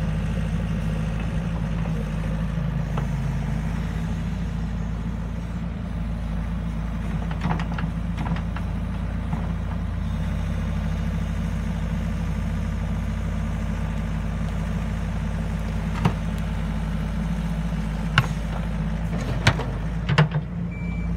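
Yanmar ViO80 excavator's diesel engine running steadily while the machine grades soil with its bucket. A few sharp knocks cut through, mostly in the last five seconds.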